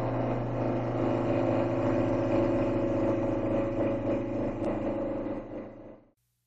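Wood lathe running with a square blank spinning as it is roughed down to round, a steady motor hum with cutting noise over it. It stops abruptly about six seconds in.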